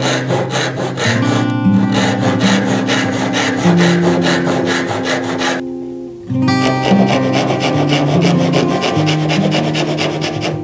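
Fine-toothed backsaw rasping through a small piece of wood in quick, even strokes while cutting a tenon. The strokes stop briefly a little past halfway, then resume. Acoustic guitar music plays underneath.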